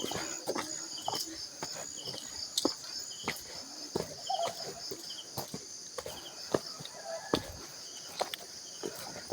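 Insects chirping steadily in the background, with a short repeated chirp about once a second, and scattered knocks and footstep-like clicks.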